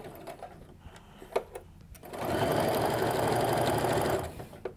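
Electric home sewing machine stitching a seam through T-shirt quilt blocks in one steady run of about two seconds in the middle, after a few light clicks of handling; the motor stops shortly before the end, followed by a single click.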